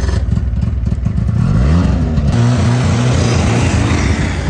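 Ski-Doo snowmobile engine revving as the sled pulls away, its pitch climbing about one and a half seconds in, then running loud and steady as it drives past.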